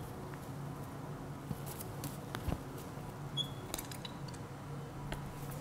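Faint scattered clicks and light handling sounds as a plastic product bottle is squeezed upside down to dispense an additive into a plastic mixing bowl, over a low steady room hum.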